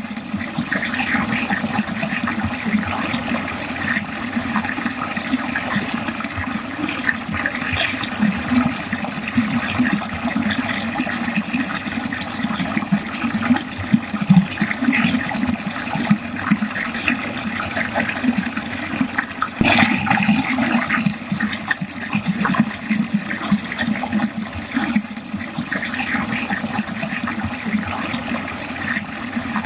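Water pouring and gurgling down into a drain in a steady churning flow, with a sharper splash about two-thirds of the way through.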